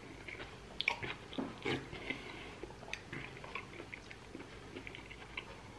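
Close-up eating sounds: chewing and slurping spoonfuls of bean soup, with a few sharp clicks of a metal spoon against the bowl.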